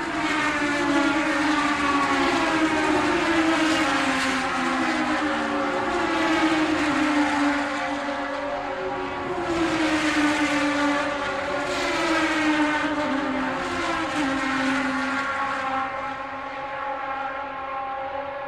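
Formula 1 cars racing past one after another, each high engine note dropping in pitch as the car goes by. The sound grows fainter near the end.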